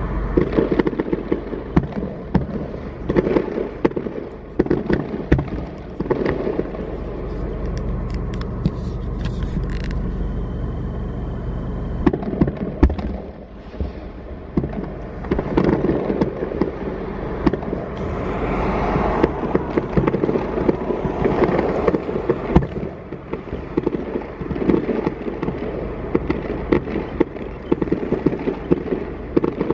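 Fireworks display: aerial shells bursting in a long, irregular string of bangs and pops.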